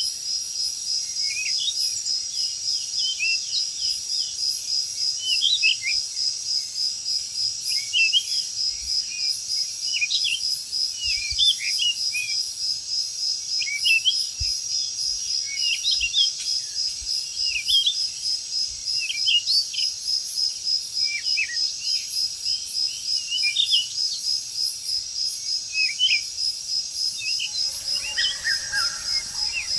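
Tropical forest ambience: a steady, rapidly pulsing high insect trill, with many short rising bird chirps over it.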